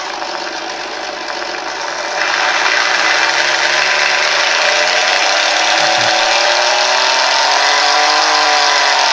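GT Power RC engine sound simulator playing a simulated aircraft engine through inductive exciters that make the model's whole airframe act as the sound box, with the propeller not turning. It is very loud and steps up in loudness about two seconds in. Its pitch then climbs slowly as the throttle is opened and eases back down near the end.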